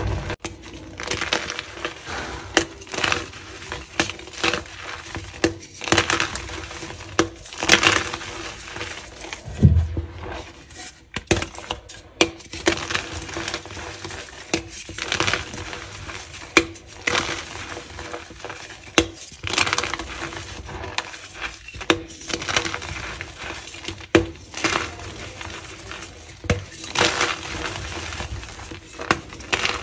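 Hands crushing and crumbling reformed gym chalk into powder: a string of irregular dry crunches, one every second or so, over a soft crumbly hiss of powder sifting through the fingers.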